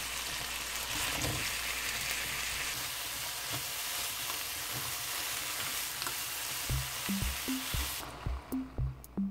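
Diced potato, onion, carrot and king oyster mushroom sizzling as they are stir-fried in butter in a nonstick pan and turned with a spatula. The steady sizzle cuts off near the end, and a drum-machine beat comes in during the last few seconds.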